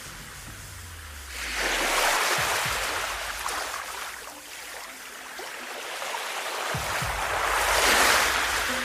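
Sea waves washing, with two swells of rushing water, about a second and a half in and again near the end.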